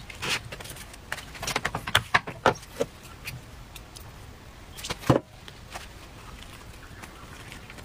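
Kitchen handling noises from a glass bowl, a plate and a silicone brush at a tabletop crepe maker. A quick run of short clicks and light taps over the first three seconds is followed by one louder knock about five seconds in, and it is quieter after that.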